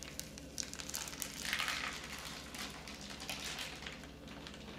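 Parchment paper being peeled off the bottom of a baked sponge cake: soft crinkling and crackling, strongest about a second and a half in, then thinning out.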